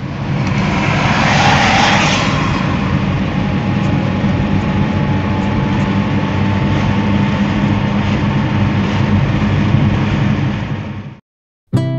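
Car interior noise at highway speed: a steady low engine drone with road and wind rush, swelling louder about one to two seconds in. It cuts off suddenly near the end.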